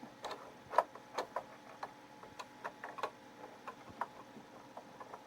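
Irregular plastic clicks and taps, a few a second at uneven spacing, from the print head cartridge being handled and fitted back into a Commodore MPS 1270 inkjet printer. The loudest click comes about a second in.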